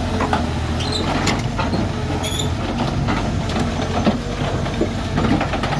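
Heavy construction machine's diesel engine running steadily, with repeated metal clanks and knocks and a brief high squeal of metal about two seconds in.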